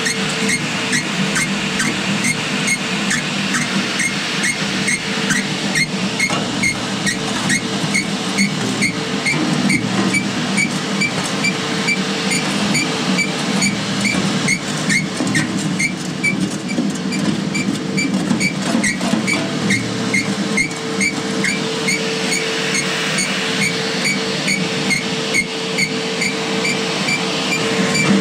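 Home-built auger-type cement mixer running steadily, with a constant hum and a regular ticking two to three times a second.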